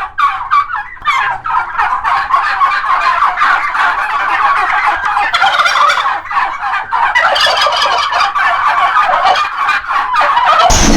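Turkeys gobbling, many rapid calls overlapping. Just before the end it is cut off by a louder, deeper, steadier sound.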